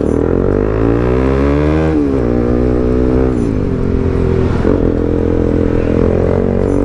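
Bajaj Pulsar NS200's single-cylinder engine running through a loud exhaust with no dB killer, accelerating. Its pitch climbs for about two seconds, drops at a gear change, then holds fairly steady with a few brief dips.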